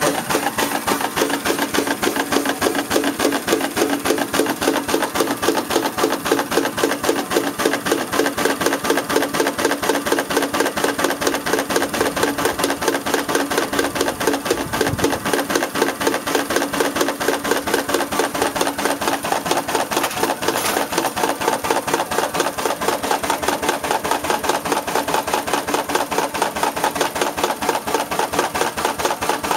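Steam engine running steadily with a rapid, even beat.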